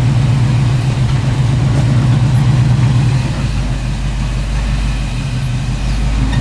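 Chevrolet K5 Blazer's engine running steadily at low speed under load as the lifted truck crawls up a steep rock slot, with a low rumble beneath it.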